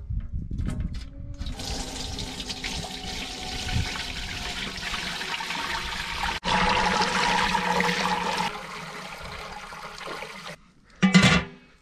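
Water rushing steadily. It drops out for an instant about six seconds in and comes back louder, then stops, and a short loud sound follows near the end.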